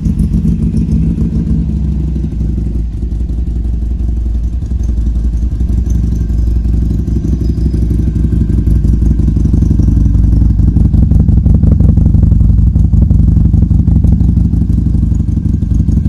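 Harley-Davidson Sportster 883 Iron's air-cooled V-twin idling in neutral through a freshly installed Supertrapp SuperMeg 2-into-1 exhaust, seconds after starting, run to check the new exhaust for leaks. Steady and loud, swelling a little around the middle.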